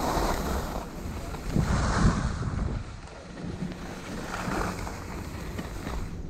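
Skis scraping and carving over packed, tracked snow in hissing swells about every two seconds, with wind rumbling on the camera's microphone.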